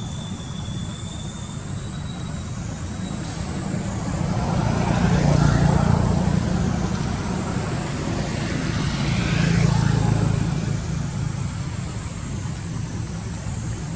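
Motor traffic passing on a nearby road: a steady low rumble that swells and fades twice, about five seconds in and again near ten seconds, as vehicles go by.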